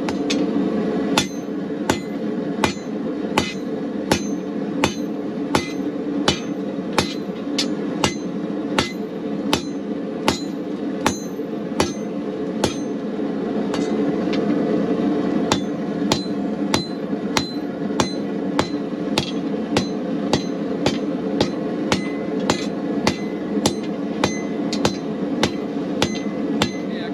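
Hammer striking a hot rebar rod on an anvil in a steady rhythm, about three blows every two seconds, over a continuous steady roar of the running gas forge.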